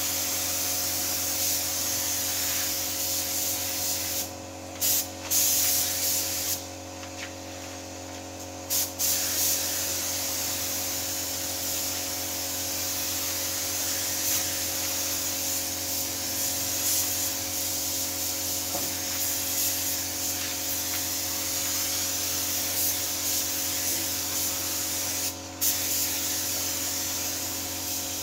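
Gravity-feed air spray gun hissing steadily as it sprays paint onto a car panel. The hiss cuts out briefly about four seconds in, again for about two seconds a little later, and once more near the end, as the spraying pauses.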